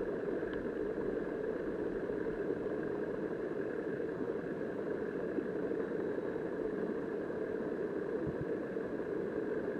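Steady, muffled rushing of river current, heard underwater through the camera's submerged housing.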